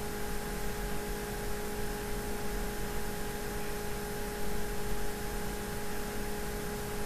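Steady hiss with a constant electrical hum made of several steady tones; no separate sounds stand out.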